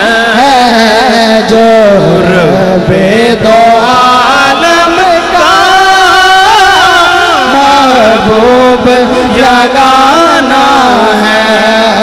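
Male naat reciter singing into a handheld microphone: a long wordless passage of held notes that slide and waver up and down in pitch.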